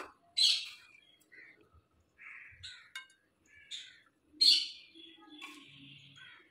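Faint crow calls: several short, harsh caws spaced unevenly, the loudest about four and a half seconds in.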